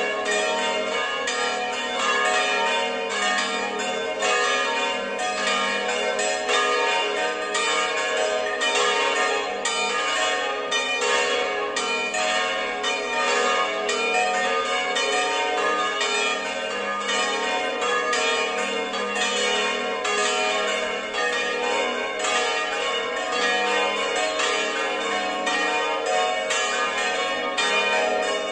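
Plenum of five swinging church bells tuned to A-flat, B-flat, C, D-flat and E-flat, ringing together in a dense, continuous peal of overlapping strikes: the full peal for the festive noon Angelus.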